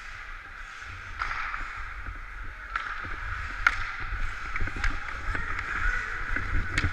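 Ice hockey skate blades scraping and gliding on rink ice, with low wind rumble on the moving microphone. Several sharp clicks of sticks and puck come in the second half.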